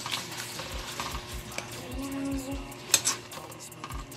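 Metal spoon stirring noodles in a pan, scraping and clinking against the pan, with one sharp clink about three seconds in.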